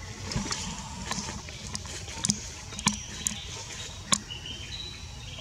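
Forest ambience: a steady low background noise with scattered sharp clicks, about eight in all, and a few short high chirps near the end.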